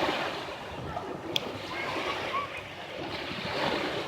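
Waves washing on the beach, a steady rushing noise, with a single short click about a second and a half in.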